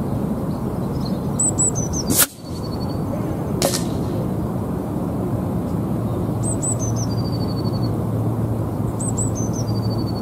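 A single shot from a sub-12 ft-lb .177 pre-charged pneumatic air rifle about two seconds in, followed by a fainter sharp tick about a second and a half later. Steady wind noise and small birds chirping a few times run underneath.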